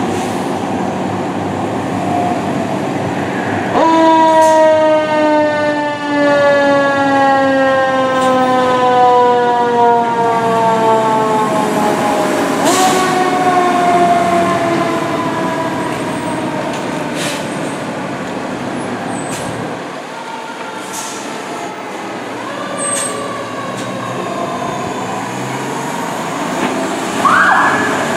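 Fire truck siren from a ladder truck and engine leaving the station on an alarm. A loud siren tone starts about four seconds in and slides slowly down in pitch, sounds again midway, then fades, over the steady running of the trucks' engines.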